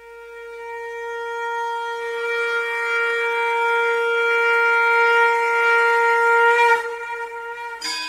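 One long held note on a wind instrument, steady in pitch, swelling louder for almost seven seconds and then stopping suddenly. Just before the end, music with shorter plucked notes begins.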